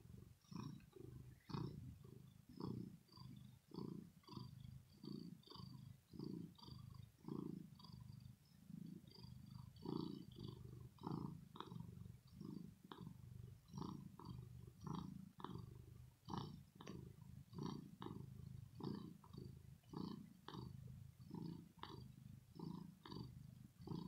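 Domestic tabby cat purring: a low, deep rattle from the throat that swells and fades with each breath, about two pulses a second.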